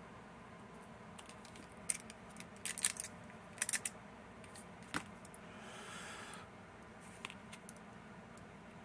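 Small metal lock parts (levers, gears and case pieces of a disassembled lever lock) clinking and clicking against each other as they are handled, in several quick clusters, with a short scrape of metal sliding about halfway through.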